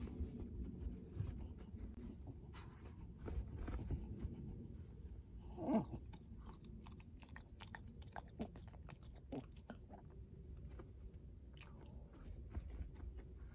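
A small spaniel scratching and pawing at blankets and fleece bedding to make a bed, a run of soft fabric rustles and little scrapes. There is a brief falling squeak near the middle.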